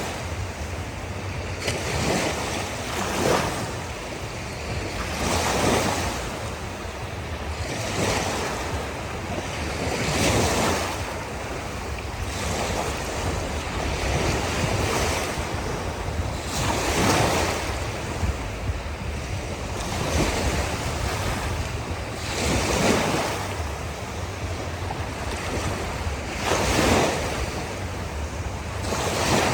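Ocean waves breaking on a shore: a steady wash of surf with a swelling surge every two to four seconds, over a steady low rumble.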